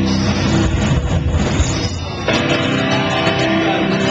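Live heavy rock band playing loud with distorted electric guitars and drums; about two seconds in the full band breaks off and a held guitar chord rings on.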